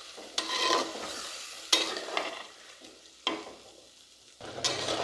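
Steel spatula stirring and scraping chicken pieces in spice paste through hot oil in a clay pot, with the food sizzling as it fries. A few sudden scraping strokes come a second or so apart, each fading out.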